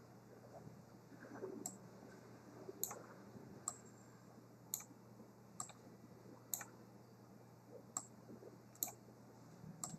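Faint computer mouse clicks, about nine single clicks spaced roughly a second apart, made while adjusting a sound's volume settings in the Flash editor.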